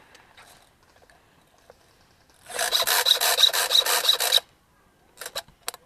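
An airsoft gun fires a rapid burst of about two seconds, a rasping string of shots, followed near the end by a few sharp clicks.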